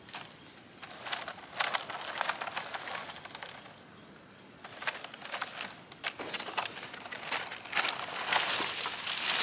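Rustling and crackling of a young coconut bunch and palm fronds being handled and worked loose, in irregular clusters of sharp clicks and scrapes, with a quieter spell around the middle.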